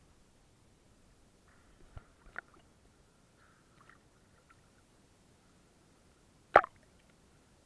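Sea water splashing against a camera's waterproof housing held at the waterline, with a few sharp knocks on the housing: two about two seconds in and a louder one near the end.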